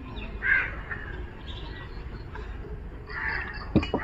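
A crow cawing twice, about half a second in and again after about three seconds, followed by a few sharp clicks of a steel plate being tapped near the end.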